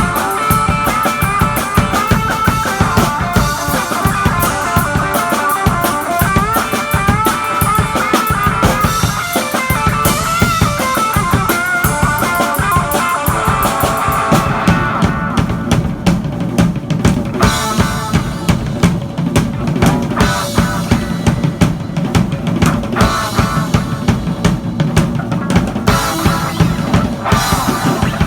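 Live rock jam: a Telecaster electric guitar plays a wavering lead line over a drum kit. About halfway through the guitar line drops back, and the drums, with bass drum and crashing cymbals, carry on hard.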